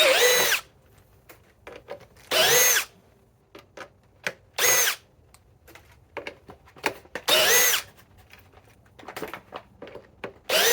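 Cordless hammer drill run in five short bursts, each under a second and about two to three seconds apart, its motor whine rising in pitch at each start as it spins #14 × 3/4-inch sheet metal screws into metal. Small clicks and knocks come between the bursts.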